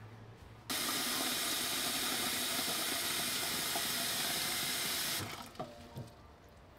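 Kitchen tap running into a pot in a stainless steel sink, starting about a second in and shutting off a second or so before the end. A couple of light knocks follow as the pot is handled.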